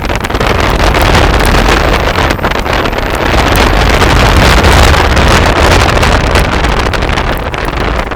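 Heavy wind rush buffeting a camera microphone held out of the window of a moving car, with a deep rumble of air and road noise beneath, loud and steady throughout.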